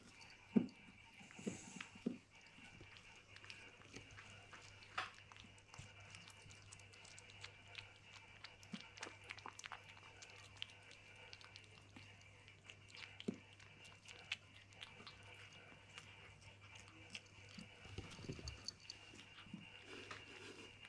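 A kitten chewing and licking at a piece of melon: faint, scattered wet clicks and small ticks, with a few soft thumps near the start and again near the end.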